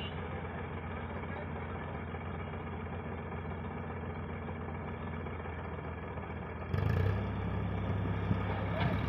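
Tractor diesel engine running steadily while its hydraulics tip a loaded soil trailer. About seven seconds in the engine gets louder, with a stronger low drone.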